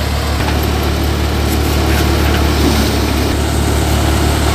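A Massey Ferguson 5245 tractor's diesel engine running under steady load, driving a Dashmesh paddy thresher through its PTO. The thresher's drum and blower whir under a steady low hum and a dense rushing noise as paddy is fed in.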